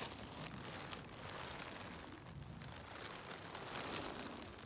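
Close rustling and crackling: many small clicks over a soft hiss that swells and fades, the sound of hands and clothing working among leaves and twigs.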